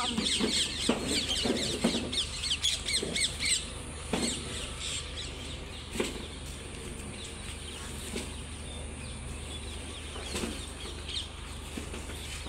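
A crowd of small birds chirping and chattering, busiest in the first few seconds and thinning after that, with scattered knocks and thuds.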